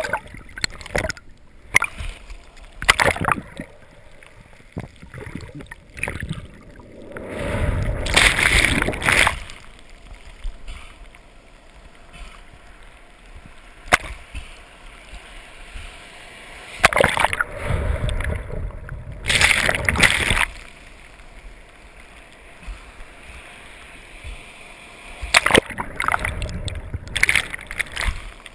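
Seawater sloshing and splashing around a GoPro at the ocean surface, with quieter, muffled stretches in between. Loud surges of water noise come several times, a second or two each, with a few short knocks.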